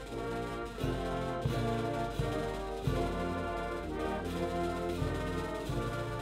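Community wind band (Norwegian musikkorps) playing, brass to the fore, with held chords changing over a low bass line.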